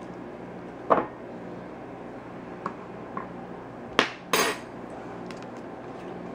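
A spoon knocking and clinking against an egg-cooker cup, a sharp knock about a second in and two light ticks, then a louder knock and a short clatter about four seconds in as the cup is set down in a glass bowl of water.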